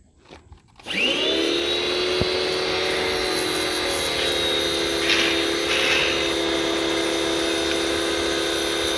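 Harbor Freight pressure washer starting up about a second in, its motor quickly rising in pitch and settling into a steady whine with a hiss above it.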